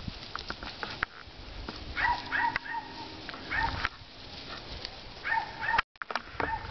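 Dog whining in short, high, arching notes, in three little clusters of a few notes each, over scuffling on grass.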